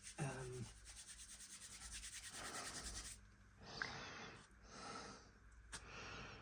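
Faint rubbing and scraping of small model-locomotive parts being handled and fitted, with a fine rasping texture for the first few seconds. This is followed by a few short hisses.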